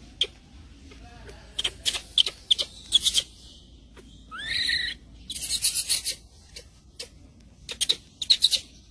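Macaque mother and baby moving: short clusters of sharp rustling and scraping clicks. About four and a half seconds in comes one short squeak that rises steeply and then holds.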